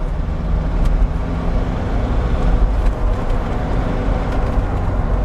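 Force Gurkha Extreme's four-cylinder diesel engine running steadily under way, heard from inside the cabin, with road and tyre noise beneath it. The engine is pulling in a high gear at low revs with no gear change.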